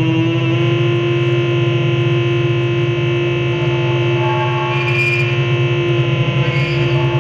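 Live noise-music drone: a loud, dense wall of steady held tones over a low hum, with higher tones swelling in around the middle and a brief hiss about five seconds in.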